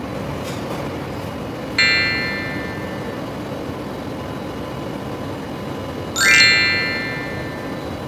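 Two bright chime sound effects about four seconds apart, each ringing out over about a second; the second is led in by a quick rising sweep. Underneath is a steady machinery noise.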